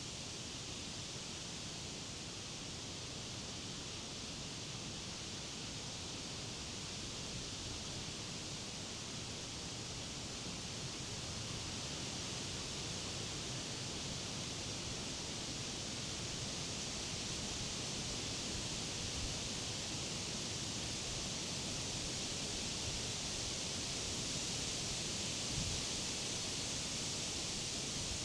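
Wind blowing through leafy summer trees and grass, a steady rustling hiss of leaves that slowly swells as a gust builds.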